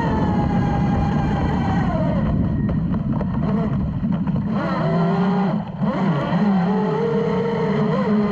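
Brushless electric RC speedboat's motor whine falling in pitch as the throttle is eased into a turn, then climbing again as it powers back up, over the rush of water spray against the hull.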